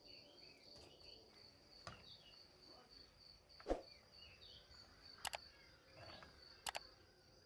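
Near silence, with a faint, steady chirring of a cricket in the background and a few soft clicks. The loudest click comes a little under four seconds in.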